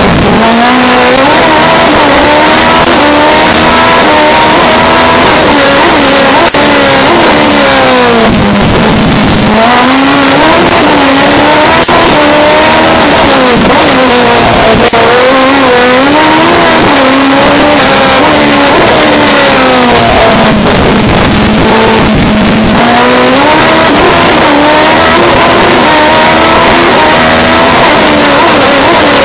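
Race car engine heard from inside the cockpit, revving hard: its pitch climbs through each gear and drops back at every shift. Twice it falls away lower as the car slows, then climbs again. It is very loud throughout.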